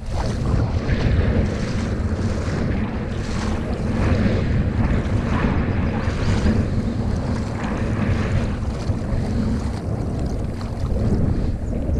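Wind buffeting the microphone: a loud, rough rumble that goes on without a break.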